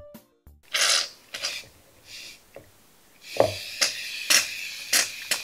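Aerosol can of Equate shave foam spraying foam into a bowl: a short hiss about a second in, then from about three seconds in a longer sputtering spray broken by repeated spurts.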